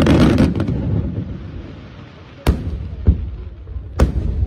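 Aerial fireworks shells bursting: a dense crackling burst in the first second, then three sharp booms, the first about two and a half seconds in and the loudest near the end.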